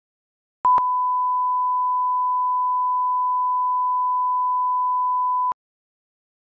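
Television colour-bar test tone: one steady beep at a single unchanging pitch, lasting about five seconds. It starts with a click about half a second in and cuts off with a click.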